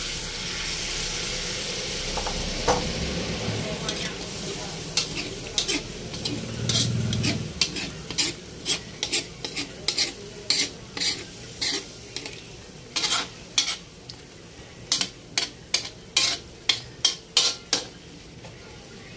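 Chicken sizzling in a hot wok as pineapple juice marinade goes in. From about five seconds in, a metal utensil stirs and scrapes the wok, clinking against the pan in one or two quick strokes a second until near the end.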